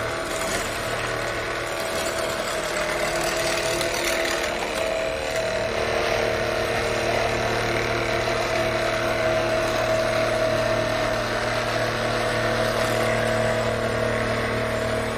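Floor-covering removal machine (powered floor scraper) running steadily, its motor giving a constant hum and whine with a noisy scraping haze over it.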